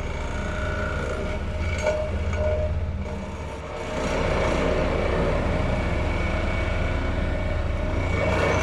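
Sheet pile driving machinery running steadily, with no separate hammer blows. It dips briefly, then runs louder and rougher from about four seconds in.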